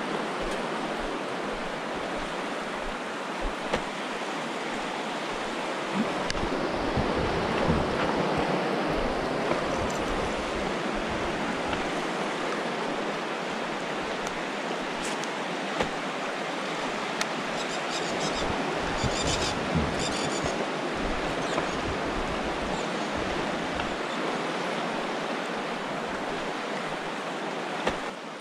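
Fast river current rushing steadily over rocks and through rapids, with a few faint clicks.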